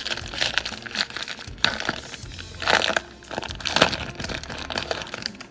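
Foil wrapper of a Topps baseball card jumbo pack being torn open and peeled back off the card stack, crinkling and crackling, with louder crinkles about three and four seconds in.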